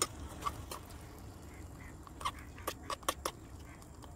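A small steel spatula scraping and tapping against a miniature iron kadai while stirring grated apple, cooking off the apple's water: a scatter of sharp metallic clicks, bunched about two to three seconds in.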